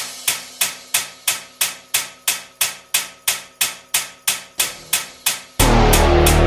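Soundtrack music: a steady percussive beat of sharp strikes, about three a second, with a louder crash and a deep bass note coming in near the end.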